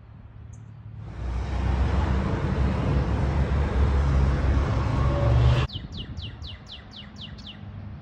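Street traffic noise with a low engine rumble for several seconds, cutting off suddenly. Then a bird gives a quick run of about eight high, down-slurred whistled notes.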